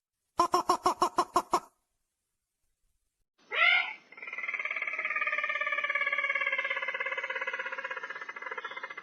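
Crake (burung tikusan) lure-call recording: a quick run of about nine sharp notes, then after a pause a rising note that leads into a long rolling trill of about five seconds, slowly falling in pitch.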